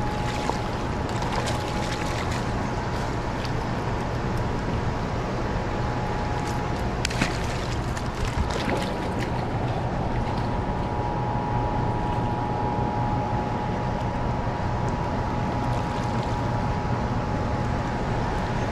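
Steady rush of river water below a dam, with a steady hum running underneath. A few short splashes and clicks come in the first few seconds and again about seven seconds in, as a hooked smallmouth bass is landed at the water's edge.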